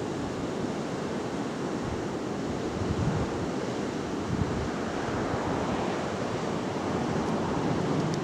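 Wind buffeting the microphone: a steady rushing noise with a gusting low rumble, swelling slightly a few seconds in.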